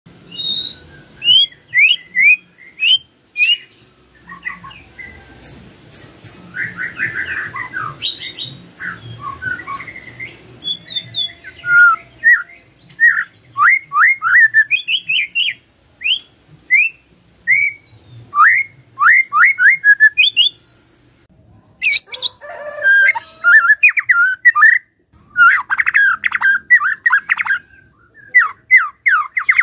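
White-rumped shama (murai batu) singing: a fast run of sharp, down-slurred whistled notes, broken by a short pause about two-thirds through and then a harsh, rasping stretch, before dense rapid phrases near the end.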